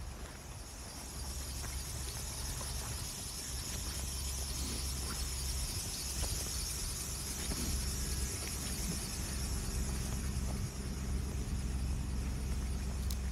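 Outdoor ambience picked up by a handheld phone during a walk: a steady low rumble on the microphone under a steady high hiss, with a few faint scattered ticks.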